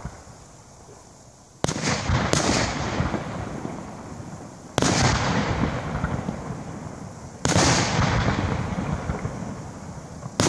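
Aerial firework shells bursting overhead: five sharp bangs, the first two less than a second apart and the last right at the end, each trailing off in a long rolling echo.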